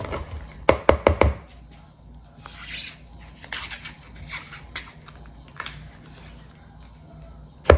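A metal spoon knocking and scraping against a plastic cream cheese tub as soft cream cheese is dug out into a bowl. A quick run of sharp clicks comes about a second in, then softer scattered scrapes and handling noises, and one sharp knock near the end.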